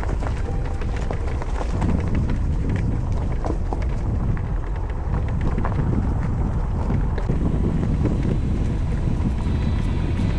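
Steady wind rush buffeting the microphone on a moving Honda Lead 125 scooter, with road and engine noise underneath.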